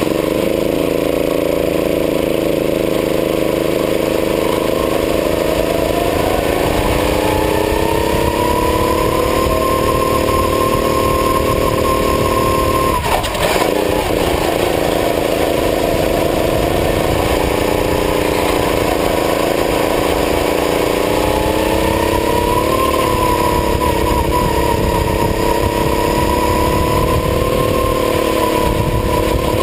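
Racing kart engine heard from onboard, running hard: its pitch climbs and holds high, drops sharply for a moment about 13 seconds in, then climbs again and holds, with a brief dip near the end.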